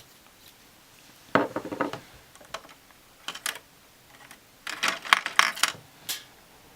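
Small hard nail art supplies clicking and clattering against a tabletop in several short bursts, the busiest run coming about five seconds in, as tools and bottles are picked up and set down.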